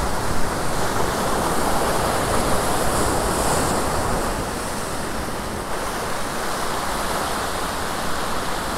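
Ocean surf breaking and washing over rocks close by: a steady, loud rushing of white water.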